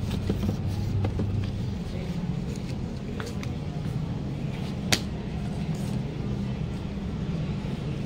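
Steady low hum of shop room tone, with light handling clicks and one sharp click about five seconds in as clothing is handled.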